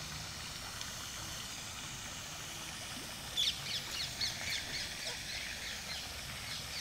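Ducklings peeping: a quick run of short, high peeps starting about halfway through and fading near the end, over a steady low background rumble.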